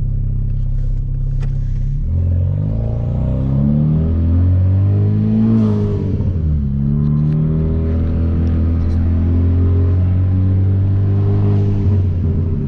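Hyundai Veloster Turbo's 1.6-litre turbocharged four-cylinder engine and modified exhaust while driving. The engine holds steady, then rises in pitch as the car accelerates from about two seconds in. The pitch dips briefly just past the middle and settles to a steady cruise.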